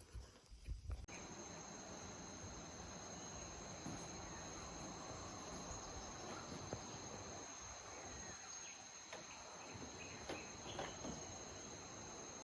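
Outdoor insect chorus: a steady, high-pitched trilling that starts abruptly about a second in and holds level, with a few faint chirps near the end.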